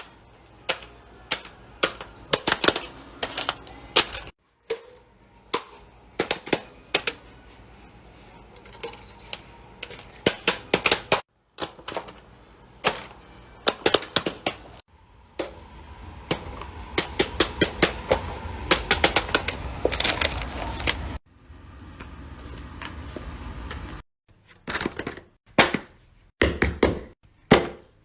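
Fidget toys being handled: a series of sharp clicks and taps in quick irregular runs, broken up by several abrupt cuts.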